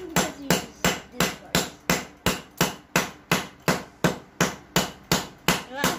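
Hammer pounding a phone charger on a concrete floor in rapid, even blows, about three a second.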